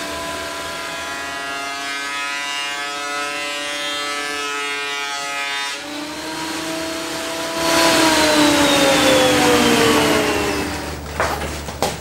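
Metabo benchtop thickness planer running with a steady whine. About seven and a half seconds in, an oak board feeds through and the cutterhead bites: a loud rushing noise, with the motor's pitch dropping under the load. It clears near the end, followed by a few sharp knocks.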